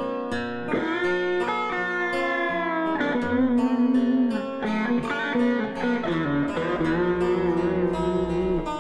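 Background music: a slow melody of sliding, wavering notes over sustained lower chords.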